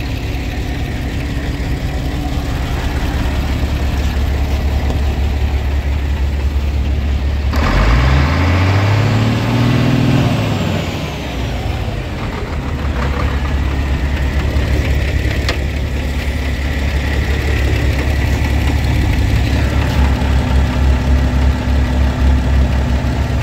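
Renault Premium 420 truck's straight-six diesel idling, revved once about eight seconds in: the pitch climbs for a couple of seconds, then drops back to a steady idle.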